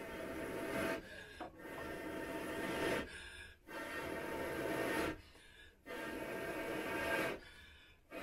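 Someone blowing through a long pipe onto smouldering firewood to get the fire going: about four long, breathy blows, each swelling and then breaking off for a short pause to draw breath.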